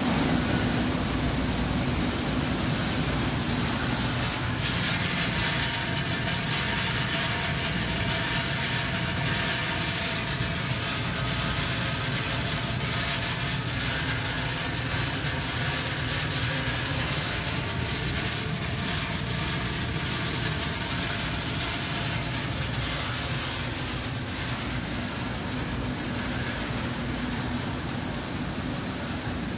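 Continuous conveyor-belt nut roasting machine running: a steady mechanical hum and hiss, even throughout, easing off a little near the end.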